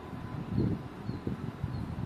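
Wind buffeting the microphone in irregular low gusts, strongest about half a second in, with a few faint short bird chirps.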